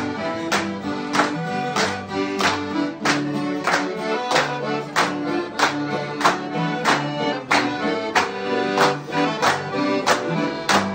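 Accordion and acoustic guitar playing a lively traditional Portuguese folk tune, with hand claps keeping a steady beat of about one and a half claps a second.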